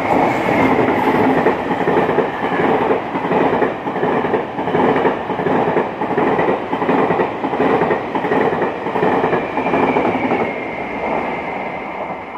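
Taiwan Railways E1000 push-pull Tze-Chiang express passing at speed, its wheels clattering rhythmically over the rail joints car after car. It fades near the end as the train moves away.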